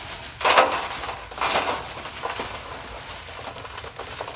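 A plastic bag of charcoal rustling and crinkling as lumps of charcoal are tipped out into a metal grill tray, with small clattering clicks. The two loudest rustles come about half a second and a second and a half in.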